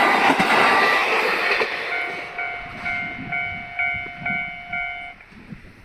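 A train passing over a Japanese level crossing, its wheel and rail noise fading away over the first two seconds. Meanwhile the crossing's warning bell rings about twice a second ("kan-kan") and stops about five seconds in, as the train clears the crossing.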